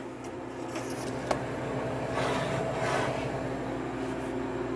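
A tray sliding onto the metal shelves of a Harvest Right freeze dryer: a click about a second in, then a scraping rustle around the middle, over a steady low hum.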